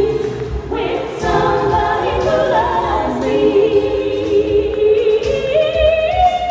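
Live dance music with women singing, holding long notes over a steady low beat.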